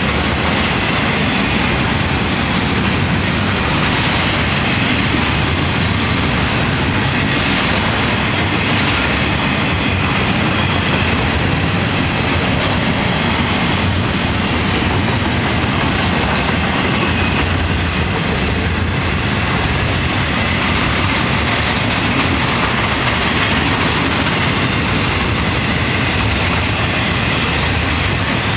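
Florida East Coast freight train's intermodal cars rolling past close by: a steady loud rolling noise of steel wheels on rail, with a few sharp clanks early on.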